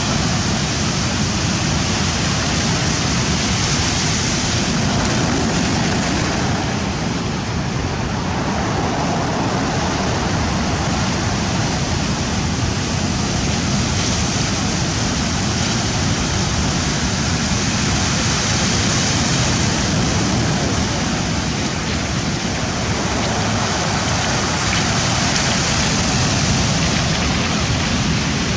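Rough sea surf breaking and washing on the shore, a steady dense rush of water that swells and eases slightly a few times.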